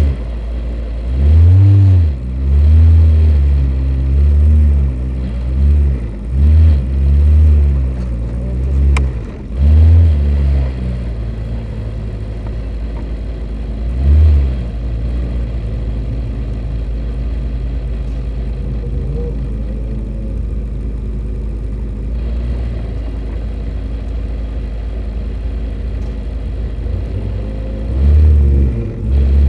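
Single-seater racing car engine at low revs in the pit lane, the revs rising and falling in repeated surges while the car creeps along. It settles to a steady idle while the car sits stationary, then revs up again near the end.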